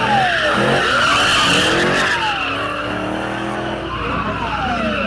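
Police siren wailing, its pitch sliding slowly up and down, over a steady hissing rush.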